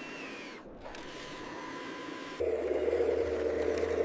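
Steady mechanical whirring of snow-clearing vehicle machinery, which about two and a half seconds in switches abruptly to a louder, lower steady engine drone.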